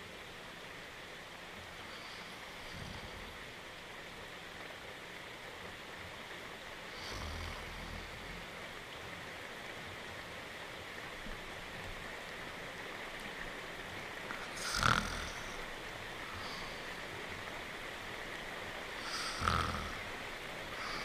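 An animated dog character snoring in his sleep over a steady hiss of rain. There are a few snores, faint at first; the two loudest come in the second half, about four and a half seconds apart.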